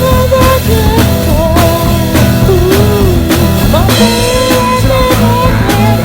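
Loud rock music: a band with drum kit and guitar, with a lead melody that bends in pitch over a steady drum beat.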